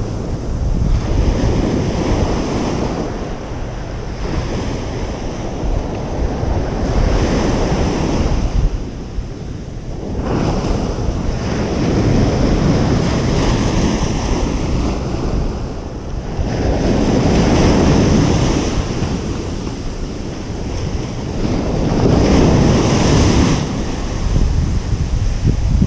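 Ocean surf breaking on a beach: a steady rushing noise that swells with each wave about every five seconds, five waves in all.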